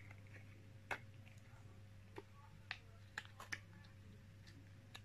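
Near silence: faint, irregular clicks and taps of a small squishy plastic toy being handled in the fingers, over a low steady hum.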